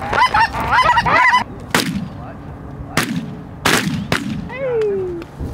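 Geese honking in rapid, overlapping high calls, which stop about a second and a half in; then three shotgun shots, the last two close together, and a single short call falling in pitch near the end.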